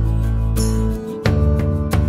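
Instrumental background music: a held chord that fades briefly about a second in, then a new chord begins with repeated plucked notes.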